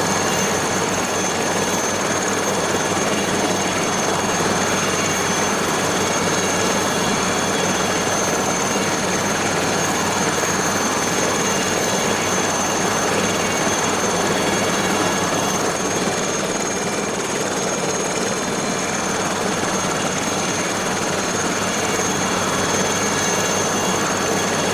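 Aérospatiale SA 315B Lama helicopter running steadily: its turboshaft engine and rotor give a dense even noise with a steady high whine on top.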